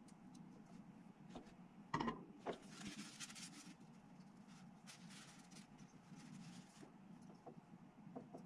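Quiet handling of plastic miniature parts as they are pressed and fitted together: a sharp knock about two seconds in, then two stretches of scratchy rubbing and a few small ticks, over a faint low hum.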